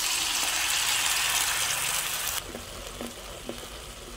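Stir-fry sauce hitting hot oil in a pan and sizzling loudly, then dropping off sharply about two and a half seconds in to a quieter sizzle.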